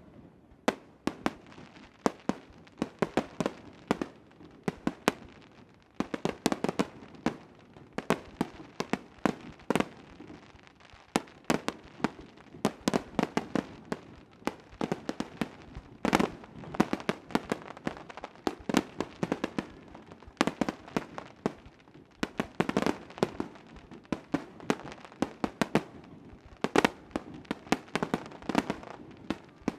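Aerial fireworks display bursting in a rapid barrage: sharp bangs several times a second, with denser clusters of bursts coming every few seconds.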